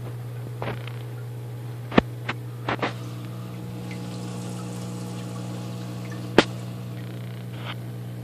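Aquarium pump humming steadily, with water bubbling. A cluster of sharp clicks comes around two to three seconds in, and one louder click comes past six seconds.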